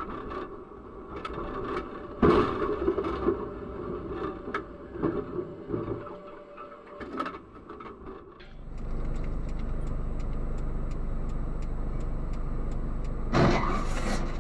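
A tram hits a car turning across its tracks: a sharp crash about two seconds in, then several smaller knocks. After that comes a car's steady interior road noise with an even ticking, and a second crash as two cars collide near the end.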